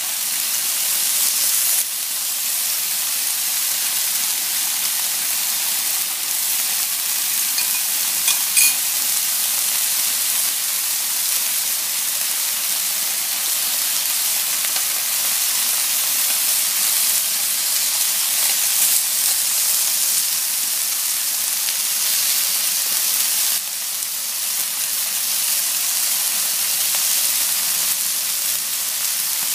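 Raw chicken strips sizzling in a hot ridged grill pan: a steady high hiss of frying, with a couple of light clicks as chopsticks set down more strips, one about eight seconds in.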